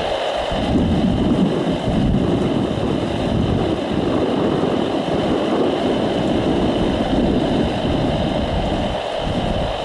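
A jet airliner's engines running at a distance: a steady rumble with a thin high whine, mixed with wind noise on the microphone.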